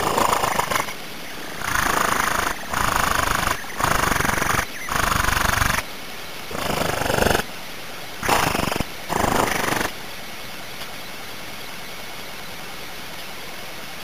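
Nestlings being fed in the nest, picked up right at a tiny in-nest camera's microphone as about eight loud, harsh bursts of noise, each under a second long. The bursts stop about ten seconds in, leaving only a steady hiss.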